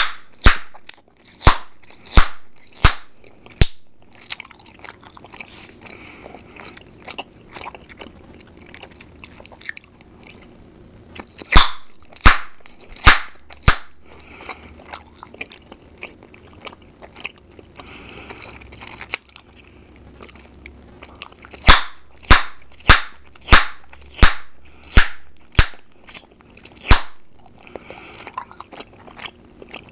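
Chewing gum snapped and popped in the mouth close to the microphone, making sharp cracks. They come in runs: about six at the start, a few around the middle, and a quicker string of about ten in the last third, with soft chewing between.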